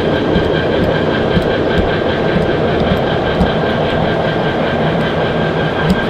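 Heavy diesel engine running steadily, a dense rumble with a steady high whine over it.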